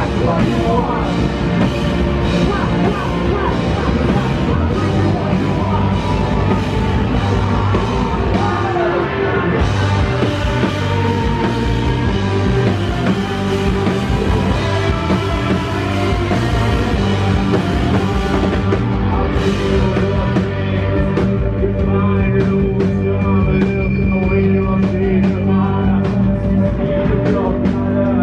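Rock band playing live: distorted electric guitars, bass and drums. About two-thirds of the way through the drums thin out and held guitar notes carry on.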